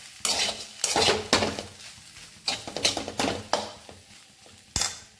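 A spatula stirring and scraping dry shredded chicken thoran around a wide metal pan: a run of scrapes and knocks against the pan, roughly two a second, with one sharper knock near the end.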